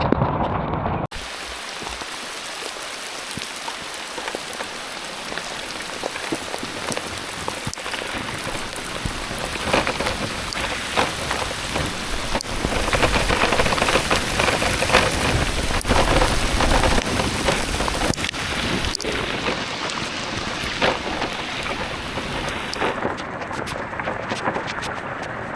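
Heavy rain falling: a dense, steady patter of drops hitting a surface, starting abruptly about a second in.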